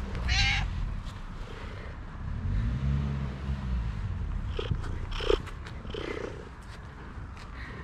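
Calico cat purring as she is stroked, with a short meow about half a second in and a few brief meows around the middle.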